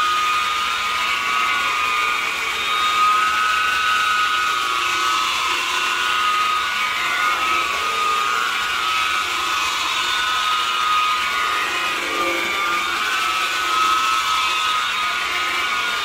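DeWalt rotary buffer running steadily, its white foam pad working rubbing compound over fresh automotive paint; the motor's whine wavers slightly as the pad is pressed and moved over the surface.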